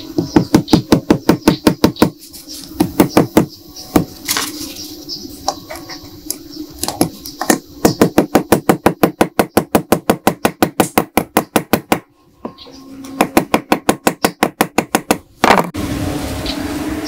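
Hammer tapping a small steel pistol part on a round steel block in quick runs of light metallic strikes, about five a second, with short pauses between runs. Near the end one loud clank is followed by a steady noise.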